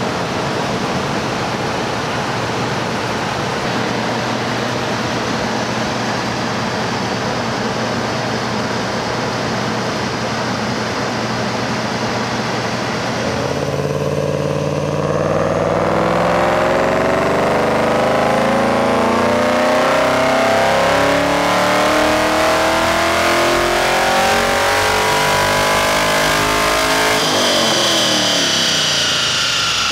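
Car engine on a chassis dyno: it runs steadily at first, then, about halfway in, goes to full throttle and climbs in pitch through the rev range for about thirteen seconds, and near the end drops away as the throttle is lifted. This is a baseline power pull.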